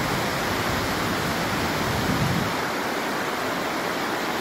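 Steady rush of a small river running over rocks and rapids, with a low rumble underneath that fades out about halfway through.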